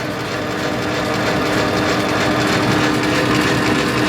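South Bend 10K lathe running on its three-phase motor with the carriage under power feed: a steady mechanical whir of belts and gear train with a steady hum, getting a little louder over the first second.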